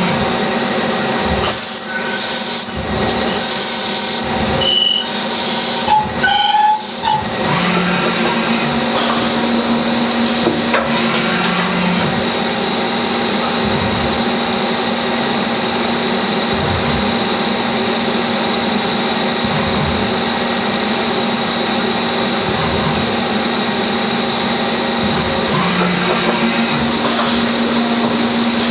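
CNC lathe running while machining a yoyo workpiece: a steady machine hum and hiss with several held tones. A few short high chirps and brief breaks come a few seconds in, then the cutting noise runs on steadily.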